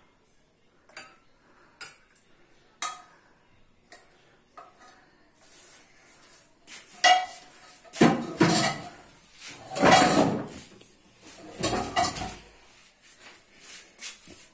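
Steel ladle clinking against stainless steel cups a few times. About halfway through comes a run of louder scraping and thudding noises.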